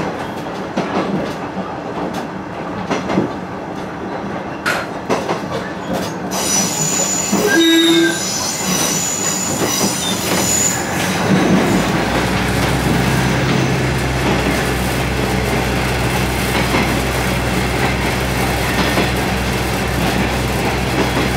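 KiHa 110 diesel railcar running on jointed track, heard from inside the car. Rail-joint clicks come first, then the wheels squeal on a curve for a few seconds. About eleven seconds in the train enters a tunnel, and the running noise turns louder and fuller, with a steady low drone.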